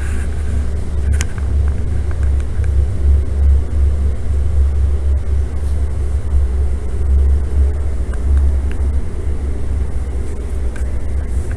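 Steady low rumble of a paint booth's air handling, with a sharp click about a second in.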